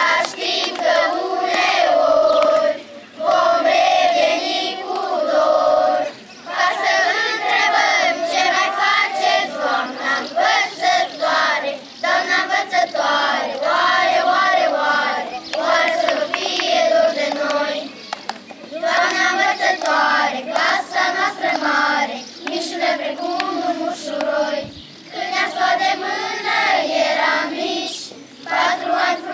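A group of young schoolchildren singing a song together in unison, in phrases with short pauses every few seconds.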